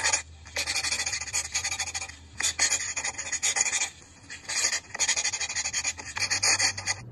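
Pencil scratching on paper, as in writing or sketching: quick strokes coming in several bursts with short pauses between them.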